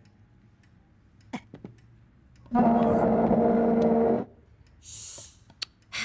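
A loud, steady honking comedic sound effect lasting about a second and a half, followed about a second later by a brief hiss.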